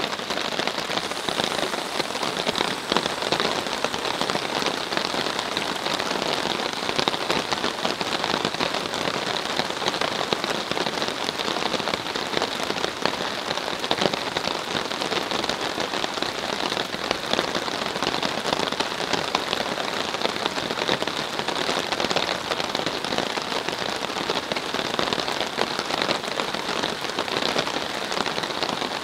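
Steady rain falling on a tarp shelter overhead, a dense, even spatter of many small drops.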